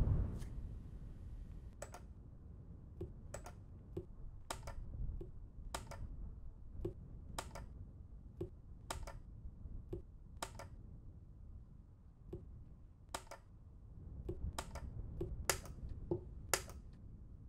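Quick chess play: plastic chess pieces set down on a vinyl board over a wooden table, and the buttons of a DGT 1002 chess clock pressed after the moves. The result is a run of sharp clicks, roughly one a second, some in quick pairs.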